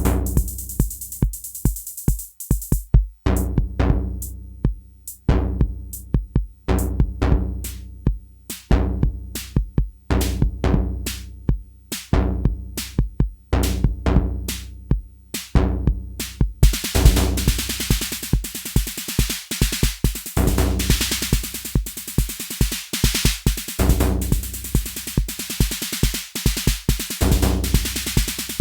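Sequenced electronic drum pattern from a DIY TR-606-style analog drum machine and modular synth voices, triggered step by step from a trigger sequencer: a driving kick-and-percussion rhythm over sustained synth tones. About halfway through, a dense layer of fast, bright hi-hat-like hits joins the pattern.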